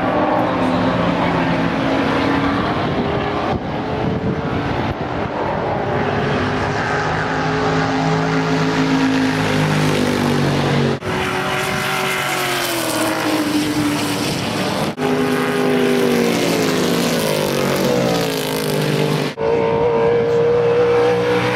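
Racing car engines running hard, with several long falling sweeps in pitch as cars pass and ease off. There are brief dropouts where the footage is cut.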